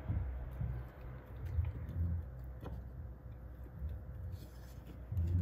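Wooden spoon stirring a thick soy cream sauce in a glass bowl, with soft irregular clicks and taps of the spoon against the glass and a louder knock near the end.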